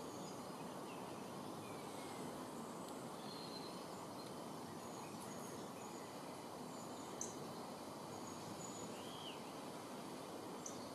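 Steady low outdoor background noise with faint, scattered chirps and short whistles of small songbirds, one of them a brief arched call near the end. A single sharp click sounds about seven seconds in.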